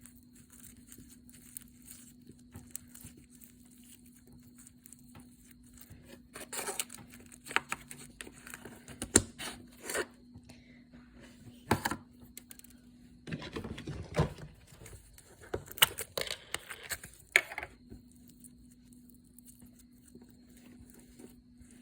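Slime being squished and stretched by hand, giving irregular bursts of crackling and popping that start about six seconds in and stop a few seconds before the end.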